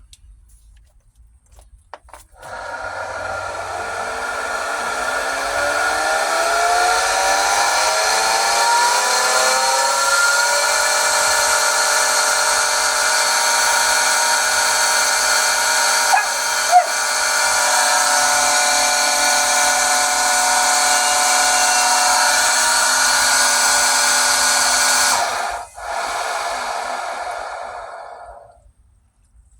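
Pentair SuperFlo VS 1.5 HP variable-speed pool pump starting up about two seconds in, its whine rising in pitch for several seconds as the motor ramps up. It then runs steady with a loud high screech. Near the end it drops out for a moment, then winds down and fades.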